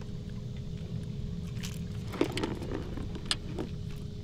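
A boat motor running steadily, a low rumble with a faint steady hum over it. A few sharp clicks and rattles, the loudest about halfway in, come from the crankbait and its hooks as they are worked out of a crappie's mouth.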